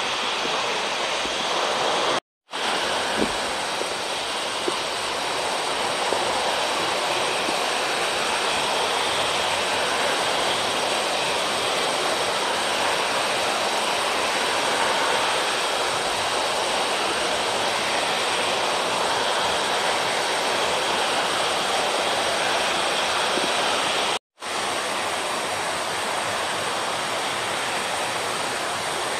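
A steady rushing noise with no speech, cut twice by a moment of dead silence: once about two seconds in and again near the end.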